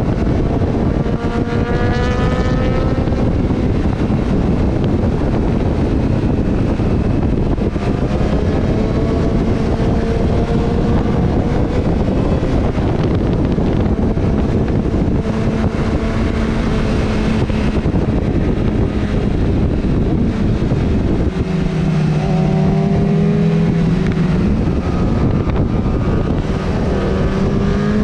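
Motorcycle engine running at speed, its pitch rising several times as it accelerates and dropping back between, over a heavy rush of wind on the microphone.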